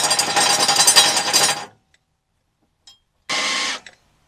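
Impact wrench hammering on a skid-plate bolt in a fast rattle that stops about a second and a half in. After a pause comes one short half-second burst.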